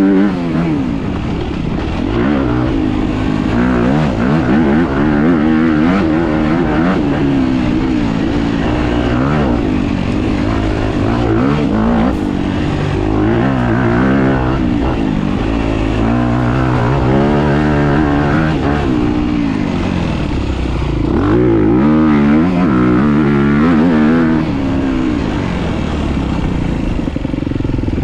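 Dirt bike engine running under load while riding, its pitch rising and falling again and again as the throttle opens and closes.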